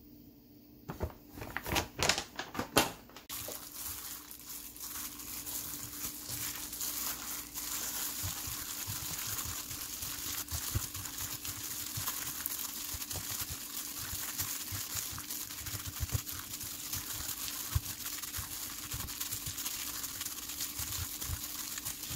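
A packet of Korean pancake mix crinkling as it is shaken out, then a plastic-gloved hand kneading and squishing a wet tofu and ground-meat mixture in a stainless steel bowl, a steady squelching with glove rustle.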